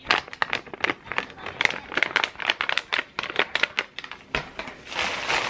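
Foil-and-plastic pouch of Temptations cat treats crinkling as it is squeezed and worked in the hands close to the microphone. It makes a rapid, irregular crackle throughout and a longer rustle near the end.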